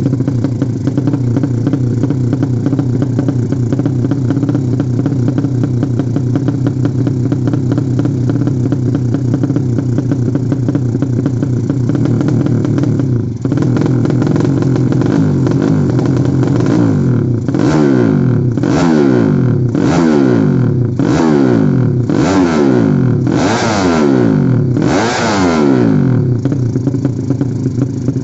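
A 200cc Yamaha Jupiter-based drag-racing motorcycle engine, a four-stroke, idling steadily while it is being tuned. From about two-thirds of the way in, it is revved in a series of about seven quick throttle blips, each rising and falling.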